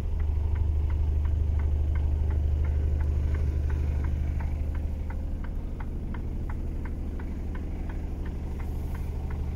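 Mercedes-Benz Actros 1843 truck's diesel engine idling, heard from inside the cab as a steady low hum. Over it runs a light, regular ticking, about three ticks a second.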